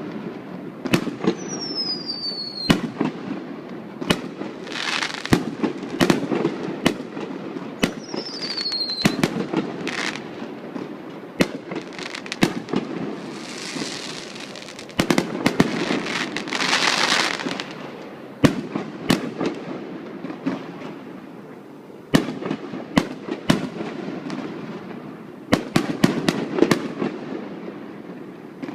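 Fireworks display: a steady run of sharp bangs from exploding aerial shells. Two whistles fall in pitch near the start, and there are several swells of crackle in between.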